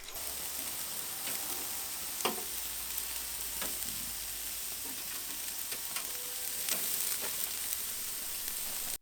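Food frying in a pan: a steady sizzle with scattered sharp crackles, the loudest about two seconds in, stopping abruptly at the end.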